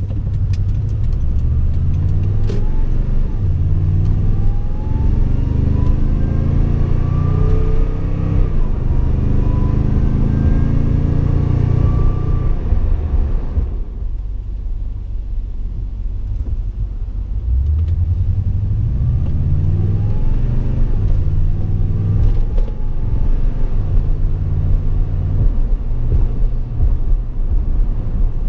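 Toyota Tundra's 5.7-litre V8 with a Magnuson supercharger accelerating hard. The supercharger whine rises in pitch with the revs through the gears, fades near the middle, then climbs again in a gentler pull from a stop.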